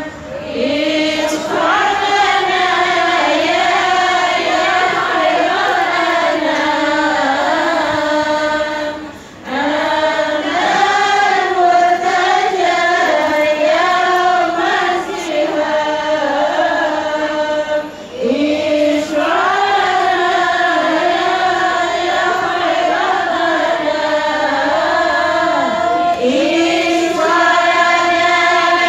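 A congregation of women singing sholawat, devotional Arabic songs of praise to the Prophet, together in unison, in long sung lines with brief breaks about nine and eighteen seconds in.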